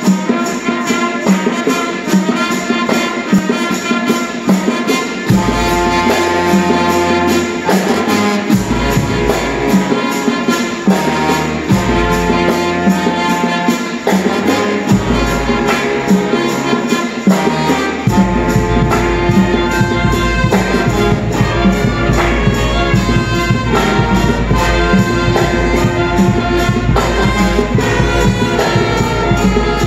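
Student band of saxophones, clarinets and brass playing a lively piece over a steady percussion beat. Deep bass notes come in about five seconds in, drop in and out, then hold steadily from about eighteen seconds on.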